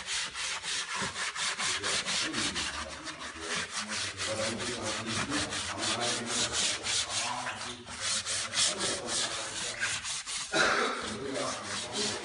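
A hand brush scrubbing the foam-covered plastic engine cover of an Audi TT 2.0 TFSI, with brisk back-and-forth strokes at about four a second.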